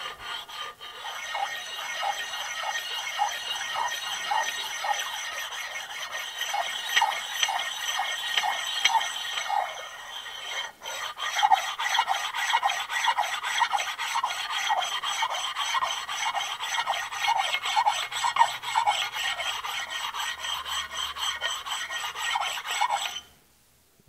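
An oiled two-sided sharpening stone rubbed back and forth in quick, even strokes over the machined flat of a metal lathe compound, stoning down a high spot, with a steady high ringing under the strokes. The stroking pauses briefly about ten seconds in and stops shortly before the end.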